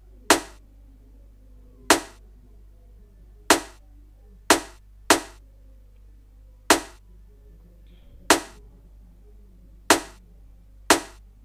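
Snare drum sample played back from an FL Studio pattern: single sharp cracks with a short decay, mostly about one and a half seconds apart, with a quicker pair of hits twice, in a syncopated reggae drum rhythm.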